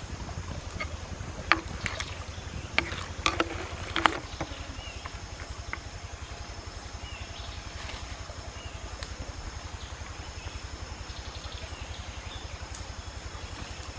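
Outdoor ambience by a stream: a steady low rumble and hiss, with several sharp clicks and knocks in the first four seconds and a few faint high chirps after.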